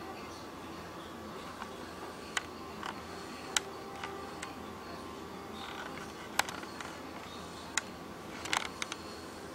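Steady electrical hum and hiss with a dozen or so short, sharp clicks at irregular intervals, loudest about three and a half and six and a half seconds in, with a quick cluster near the end.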